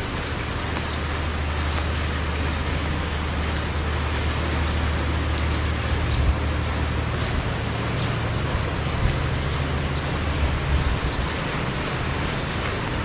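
Steady hiss of heavy rain over the low, steady rumble of motor traffic.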